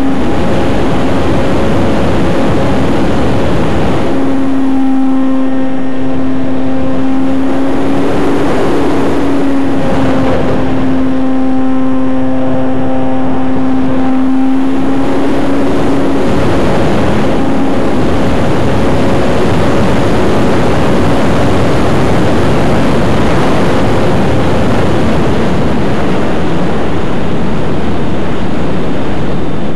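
Onboard sound of an RC T-28 model airplane in aerobatic flight: the motor and propeller's steady drone mixed with heavy wind rush on the wing-mounted camera's microphone. The drone is missing for the first few seconds, holds steady with a brief rise in pitch a third of the way in, then sinks under the wind rush for much of the second half and comes back at the very end.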